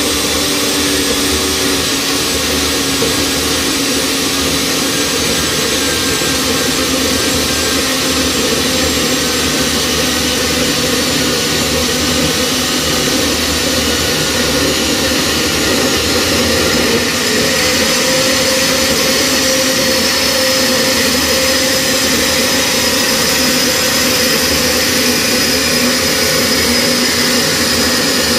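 Scheppach MSB1100 portable metal band saw running steadily, its blade cutting into a 40 mm square metal tube with 3 mm walls as the saw head is lowered.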